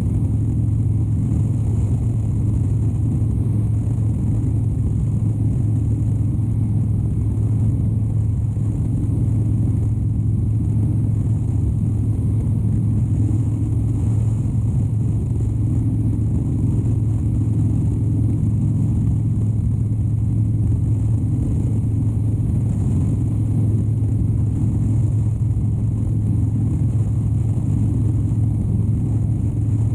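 Harley-Davidson Dyna Wide Glide's 103-cubic-inch V-twin running at a steady cruise, a deep even drone with no gear changes or revs.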